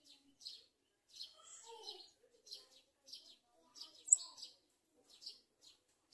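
Sunbird chirping: a run of short, high chirps, about two a second, with one sharper, louder note about four seconds in.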